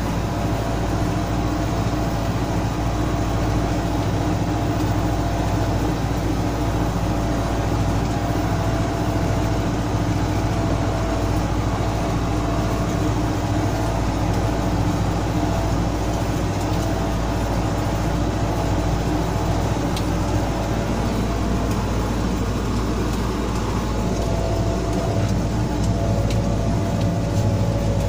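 MTZ 1025.3 tractor's four-cylinder diesel engine running steadily under load while pulling a two-shank subsoiler through the soil, heard from inside the cab.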